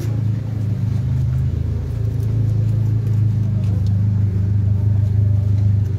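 A motor vehicle engine running steadily at low revs, a continuous low hum that grows a little louder about two seconds in.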